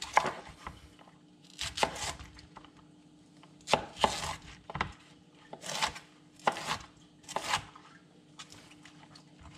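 Chef's knife chopping a head of raw cauliflower on a wooden cutting board: irregular cuts, each ending in a sharp knock of the blade on the board, roughly a second apart.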